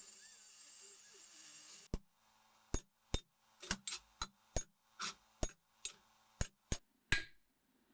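A steady hiss stops abruptly about two seconds in. It is followed by about a dozen sharp metal-on-steel strikes at an uneven pace, roughly two a second, some leaving a brief ring: a hammer knocking cut pieces and slag off a steel forge fire pot.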